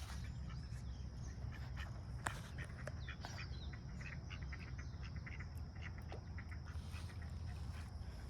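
Ducks quacking in short, scattered calls, over a steady low rumble.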